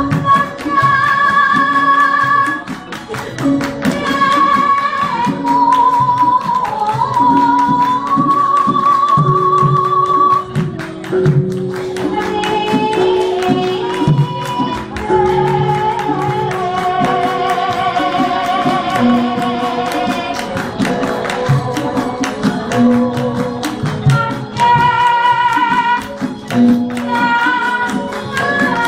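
Javanese gamelan accompanying palaran singing: a woman's voice holds long, wavering notes and slides between pitches over steadily struck bronze metallophones and gongs.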